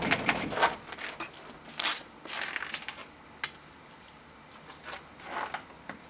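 Crackly rustling and crunching of a nylon winter parka as its wearer moves about, in a string of short bursts that are loudest in the first second, thin out after about three seconds, and return briefly about five seconds in.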